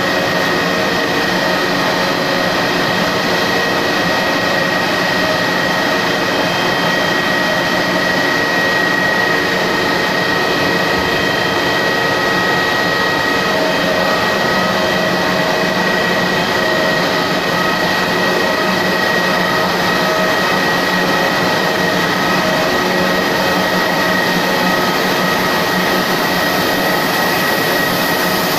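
Aluminium rod extrusion machine line running: a steady machine noise with a constant high-pitched whine.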